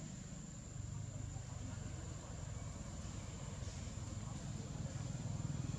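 Low rumble of a distant motor vehicle engine, slowly growing louder near the end, under a thin steady high-pitched whine.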